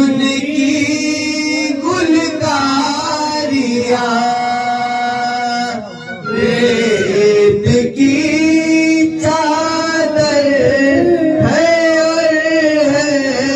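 Male voice singing an Urdu devotional kalam in long, drawn-out melismatic phrases, with a brief break about six seconds in.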